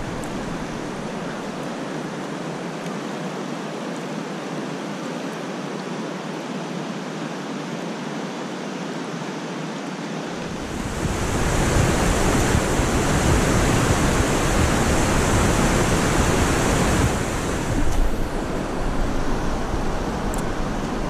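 Shallow river water rushing over stones in a steady wash, becoming louder and fuller from about halfway through.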